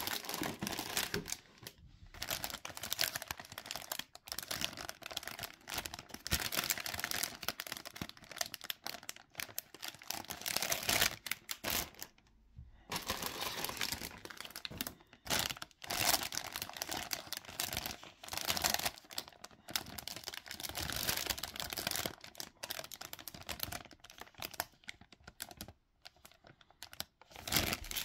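Plastic bags crinkling and hard plastic model-kit runners clicking and clacking as they are lifted out of a cardboard box and handled, in irregular bursts with a brief lull a little under halfway through.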